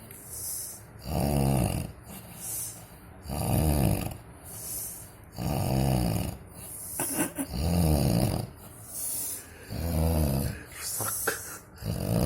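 Heavy snoring in a steady rhythm: a low rattling snore about every two seconds, each followed by a hissing breath, with a few faint clicks in between.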